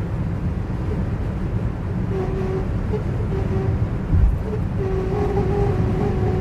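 Nissan Livina on the move: steady road rumble, with an intermittent droning hum that starts about two seconds in and keeps cutting in and out. The owner takes it for an abnormal noise; the dealer's service shop calls it normal.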